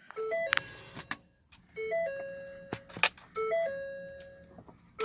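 Pickup truck's electronic dashboard warning chime with the key on: a short low-high two-note figure followed by a long held tone, repeating three times about every second and a half, with a few light clicks. The engine starts at the very end.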